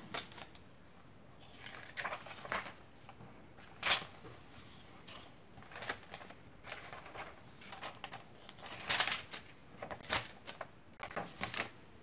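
Paper pages of a handmade junk journal being turned and handled: a string of short paper rustles and flaps. The loudest come about four seconds in and again around nine seconds in.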